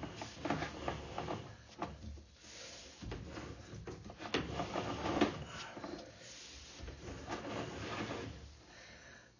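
Irregular scraping, rubbing and clicking as a sewer inspection camera is pushed along a cast iron drain pipe.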